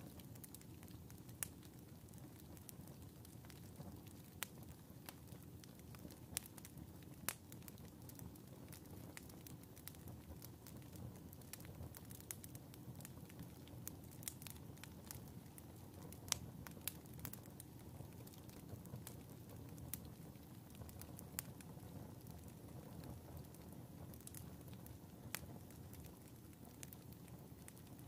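Wood fire burning in a wood stove: a quiet, low, steady rush of flames with scattered sharp crackles and pops at irregular intervals.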